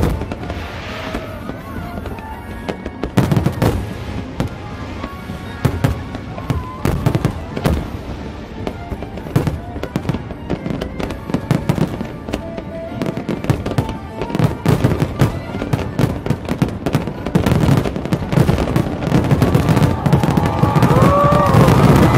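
Fireworks display: aerial shells bursting in quick succession with crackling, the bangs coming thicker and louder over the last few seconds, over music.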